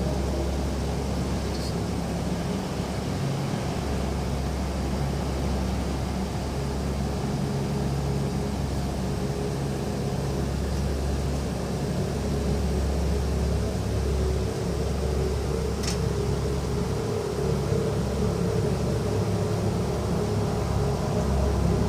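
A steady, continuous low mechanical hum with several held tones, unchanging throughout; the unexplained noise coming from outside. Two faint brief ticks, about two seconds in and near the end.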